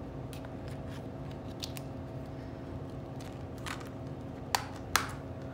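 Hands handling a plastic Blu-ray case: a few light clicks and taps, then two sharper clicks about half a second apart near the end, over a steady low hum.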